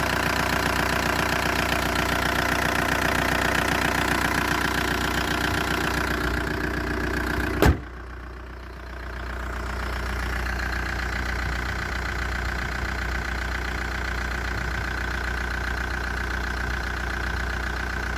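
VW ALH 1.9 TDI diesel engine idling with a dull, rhythmic 'bul-bul-bul' knock, an unwanted noise the owner cannot trace and says is far worse when the engine is cold. About seven and a half seconds in there is one sharp bang, after which the engine sounds quieter and more muffled, then settles back to a steady idle.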